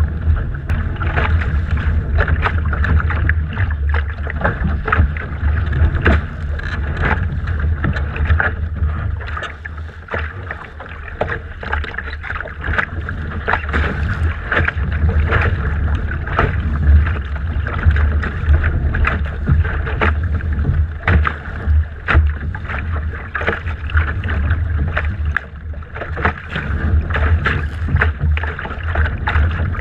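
Wind rumbling on a microphone mounted on a Laser dinghy's foredeck, with water splashing against the hull and frequent irregular sharp slaps.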